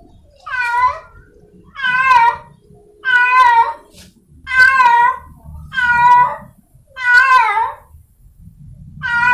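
Stray domestic cat in heat yowling to find a mate: a series of long, wavering calls, about one every second and a quarter, six in a row with another starting near the end.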